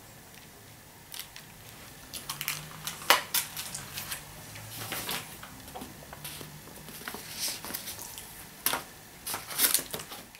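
Paper sign being handled and moved close to the microphone: irregular crackling and rustling of paper, with a sharper crackle about three seconds in and another cluster near the end.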